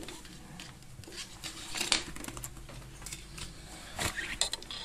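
Light clicks and rustling as a steel bicycle brake cable is threaded through the coils of a dishwasher door spring, with a few sharper ticks about two seconds in and again near the end.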